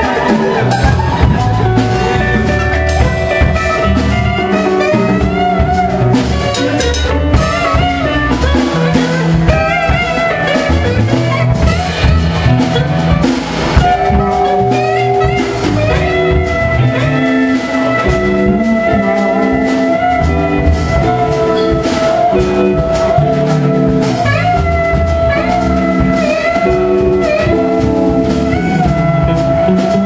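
A live jazz-funk band playing a groove: drum kit, electric guitar and bass under held and wavering high lead notes.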